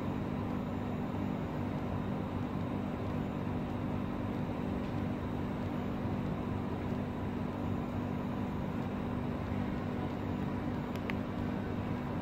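Steady low machine hum over an even wash of noise, unchanging in pitch and level, with one faint tick near the end.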